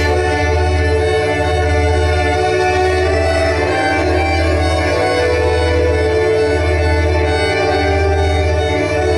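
Live drone music of sine wave oscillators and a bowed violin. Many steady electronic tones hang together, with a low tone pulsing about once a second. Over them the violin plays long held notes, moving to a new pitch about four seconds in.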